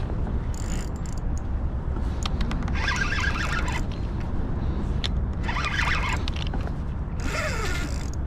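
Spinning reel and rod working against a hooked striped bass, with bursts of reel noise every couple of seconds as line is cranked in or pulled off. Under it runs a steady low rumble.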